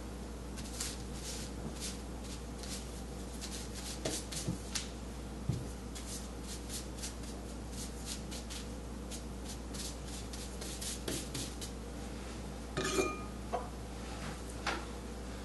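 Ink brush dabbing and dragging across unsized rice paper on a felt pad: a long run of light, dry, scratchy strokes. A brief ringing clink sounds once, about thirteen seconds in.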